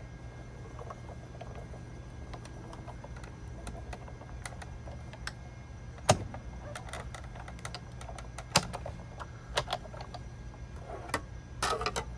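Scattered sharp clicks and clacks of acrylic cutting plates being handled and run through a Sizzix Big Shot die-cutting machine while a circle die is cut, the loudest about six seconds in and a few together near the end, over a steady low hum.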